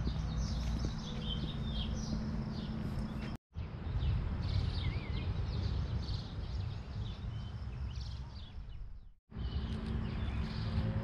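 Several birds chirping and singing over a steady low rumble. The audio drops out completely twice, briefly, about three and a half seconds in and about nine seconds in.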